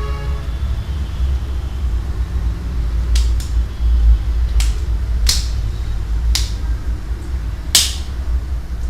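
About six sharp clicks between about three and eight seconds in, from small phone parts and tools being handled while a Nokia Lumia 520 is put back together. A steady low hum runs underneath.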